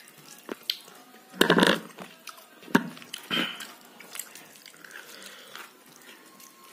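A man eating rice and dal with his fingers from a steel plate: wet sounds of the food being mixed and eaten, with a few sharp clicks and short louder bursts, the loudest about a second and a half in.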